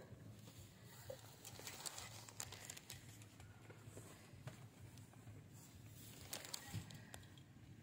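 Near silence: faint outdoor ambience with a low hum and scattered soft crackles and ticks.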